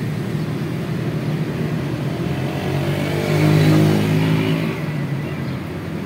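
A motor vehicle engine running close by, growing louder to a peak a little past halfway and then fading, as it passes.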